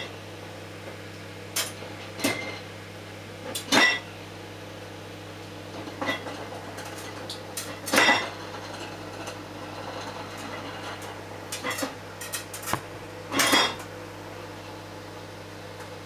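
Microwave oven running with a steady hum while its turntable tray clinks and clatters irregularly every second or few as it turns, a rattle the owner puts down to the tray not being seated properly.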